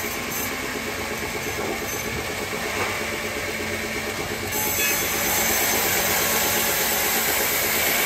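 Band sawmill running, its blade sawing through a log on the carriage: a steady machine drone with a thin whine. It grows louder and hissier about four and a half seconds in.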